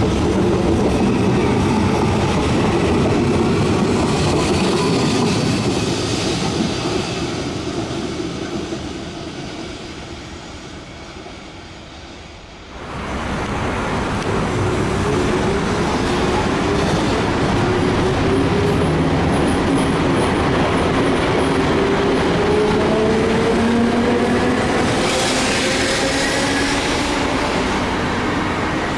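An electric metro train runs past on the track, and its rumble fades away over about twelve seconds. After a sudden cut, an electric train pulls away from a station with a steadily rising motor whine as it accelerates.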